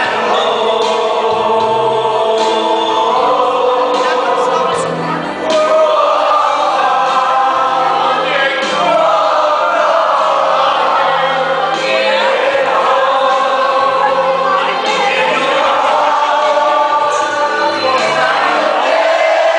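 Loud music with a crowd of many voices singing along together.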